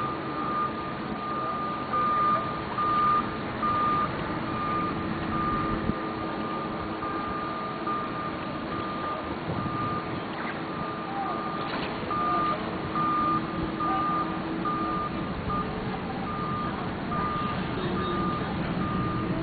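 Scissor lift's warning alarm beeping: a single high tone repeating at even spacing throughout, over a steady hum that stops about three-quarters of the way through.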